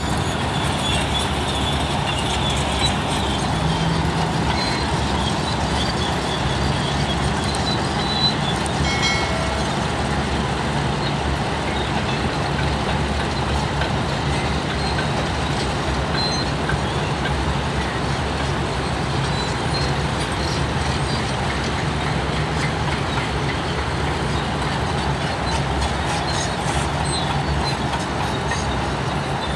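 Bulldozer running steadily: a heavy diesel engine rumbling under a dense wash of mechanical noise.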